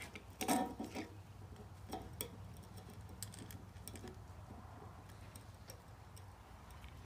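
Screwdriver turning a screw into a heavy-duty replacement plug housing: scattered small metal clicks and ticks from the tool and plug, the loudest about half a second in.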